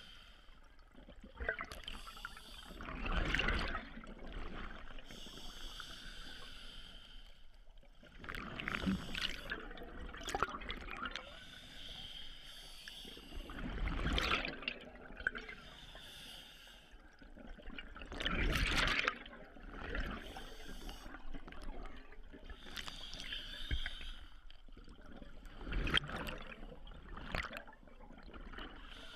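Scuba diver breathing through a regulator underwater: bubbly exhalations that swell and fade about every four to five seconds.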